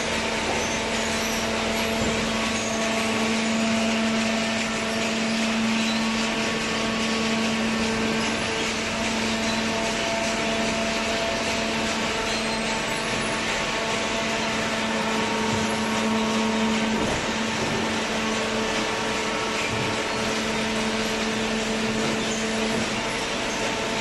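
Horizontal hydraulic cardboard baler running: a steady machine hum with a droning tone over a broad hiss.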